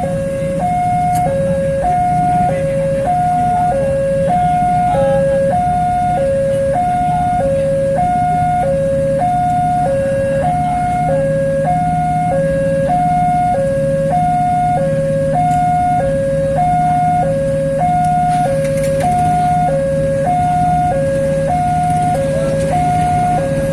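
Railway level-crossing warning alarm sounding: two electronic tones alternating high and low, each lasting a little under a second, repeating steadily. A steady low engine hum from a waiting vehicle runs underneath.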